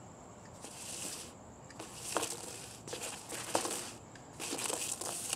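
Boots stepping and scuffing on a concrete driveway, with a few sharp knocks (the loudest about two and three and a half seconds in) as a hula hoop is kicked at and hits the ground, amid short bursts of hiss.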